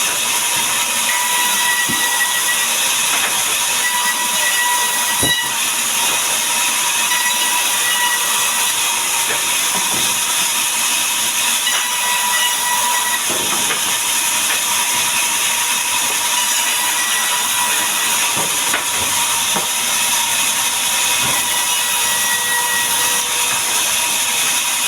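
Electric saw running steadily, a loud even hiss with a constant high whine and no change in load.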